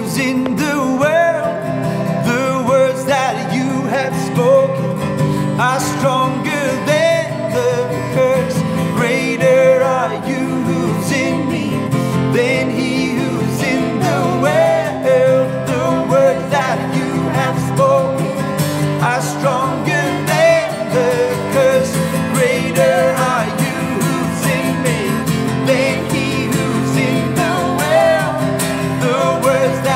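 Acoustic guitar accompanying a man and a woman singing together, a slow worship song.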